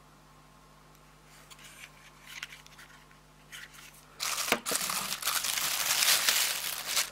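Thin clear plastic bag crinkling as it is handled and pulled open around a cordless drill: a few soft rustles at first, then loud continuous crinkling from about four seconds in.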